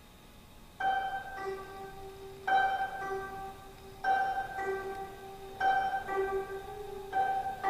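25-string gayageum, a Korean plucked zither, played solo: after a near-quiet first second, a repeating figure of a sharply plucked note followed about half a second later by a lower ringing note, recurring about every second and a half.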